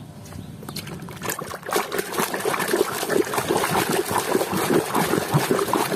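Plastic toy truck being swished and scrubbed by hand through a basin of muddy water: irregular splashing and sloshing that picks up about a second in and stays busy.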